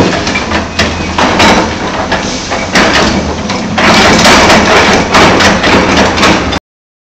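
Hyundai Robex 290LC-9 crawler excavator working demolition rubble. Its diesel engine runs steadily under hydraulic load while the bucket scrapes and clatters through broken brick and concrete, with many knocks. The noise grows louder about four seconds in and cuts off abruptly near the end.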